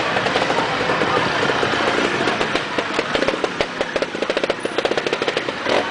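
Trial motorcycle engine running at low revs, a fast, even putter of firing pulses that stands out most clearly in the second half.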